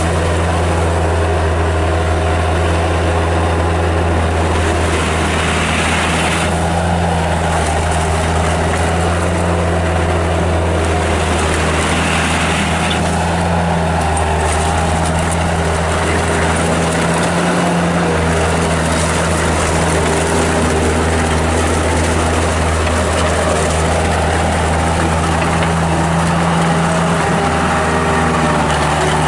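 Kubota diesel engine of a 1997 Bobcat 763 skid steer loader running steadily under the throttle, its pitch dropping slightly near the end.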